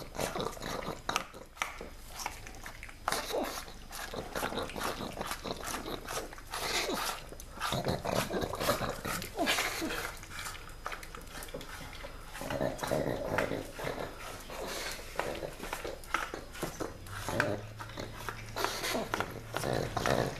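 A pug eating from a small plastic tub on a tiled floor. Irregular clicks, knocks and scrapes come as it licks and noses the tub across the tiles. A steady low hum comes in near the end.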